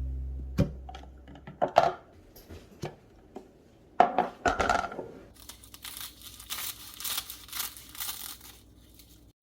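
A few sharp clicks and knocks, then several seconds of plastic crinkling and tearing, as of packaging or a plastic bag being handled and torn.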